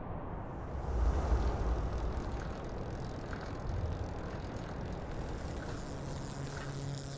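City traffic ambience: a steady rumble and hiss of road vehicles, swelling about a second in, with a low steady tone joining near the end.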